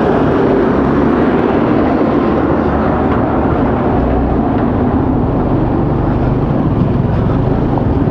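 Motorcycle engine running steadily while riding, with a dense, even noise throughout.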